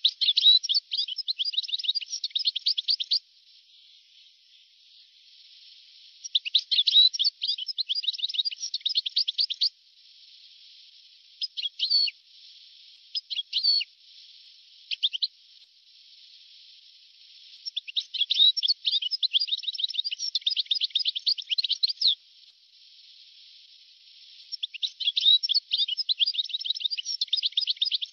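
European goldfinch singing: bouts of rapid, tinkling twittering song a few seconds long, four of them separated by pauses, with a few single notes between the second and third. A faint steady hiss fills the pauses, and the sound is thin, lacking all low tones.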